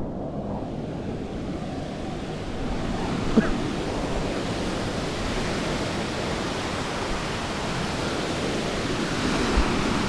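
Steady rush of a waterfall and stream water running over rock close to the microphone, with one brief sharp sound about three and a half seconds in.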